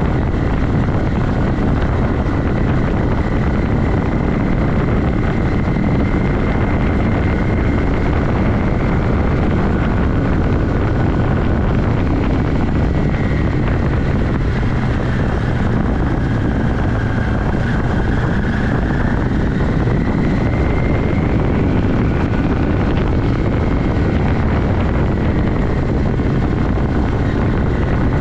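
1982 Yamaha XS400 Maxim's parallel-twin engine running steadily under way, under a dense, even rush. A faint high whine sags in pitch about halfway through and climbs back again.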